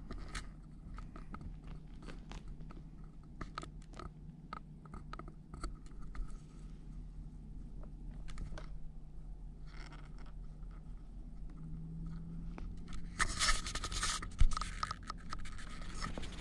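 A kitten scrabbling and clawing at a feather-boa toy on carpet close to the microphone: scattered scratches, scrapes and small knocks over a faint steady low hum. The scraping grows denser and louder near the end, with one sharp knock.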